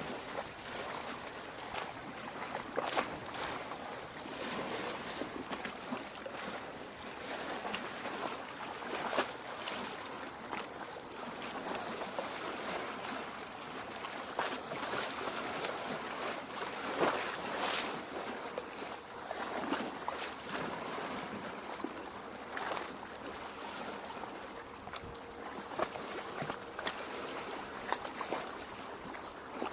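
Small lake waves lapping and splashing at the shore: a steady wash of water with frequent short, irregular splashes.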